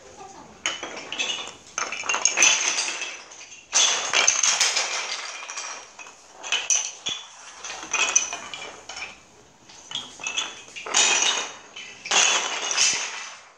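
Wooden yut sticks tossed onto a wooden floor, clattering and bouncing, several throws in a row.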